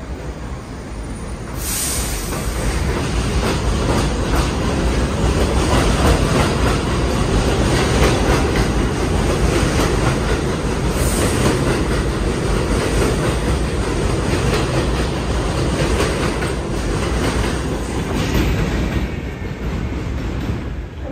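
NYC subway 1 train of R62A cars running past along an elevated platform, a steady loud rumble and clatter of steel wheels on the rails. It grows louder about two seconds in and eases near the end.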